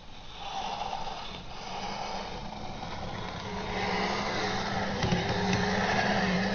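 Kyosho Blizzard RC snowcat's brushless motor and gear drive whining steadily as it drives its tracks through deep snow, getting louder from about three seconds in.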